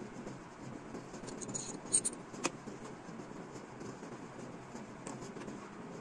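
Small steel parts clicking and scraping against each other as they are handled, with a few sharp metal clicks around two seconds in, over a steady background rumble.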